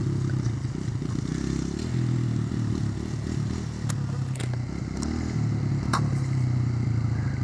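Small dirt bike engine running at low revs as it is ridden across grass, its pitch dipping and rising briefly around the middle. A few sharp clicks sound over it.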